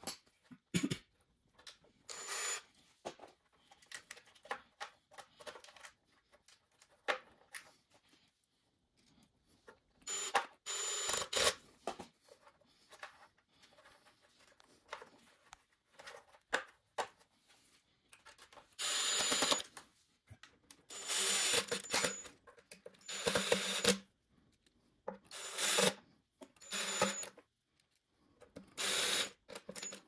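Hands working cables into plastic clips on an electric unicycle's shell: a series of short rasping bursts, each a second or two long, with small clicks and handling noises in between.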